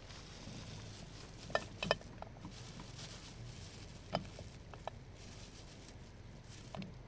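Several short, sharp knocks, each ringing briefly; two come close together about two seconds in. A faint steady low hum runs underneath.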